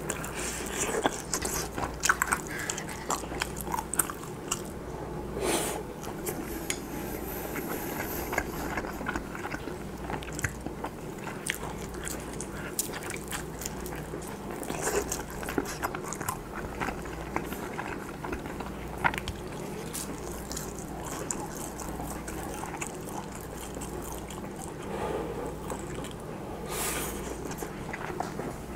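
Close-miked biting and chewing of pan-fried Spam slices with rice. Many small mouth clicks run throughout.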